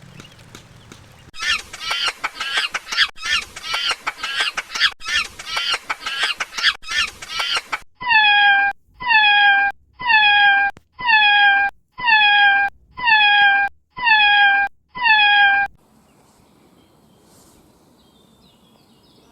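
Recorded animal calls: first a fast, dense run of calls for several seconds, then eight identical calls repeated about once a second, each falling slightly in pitch, as if the same clip were looped.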